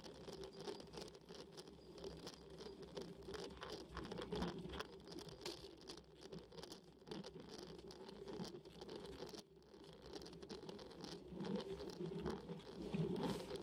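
Faint irregular pattering and scratching of road vibration picked up by a bicycle's handlebar-mounted camera as the bike climbs slowly, briefly quieter about nine seconds in.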